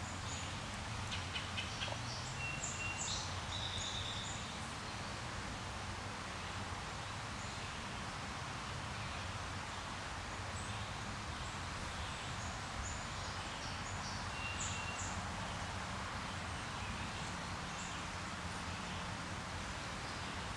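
Outdoor field ambience: a steady hiss with scattered short bird chirps and a faint low hum now and then.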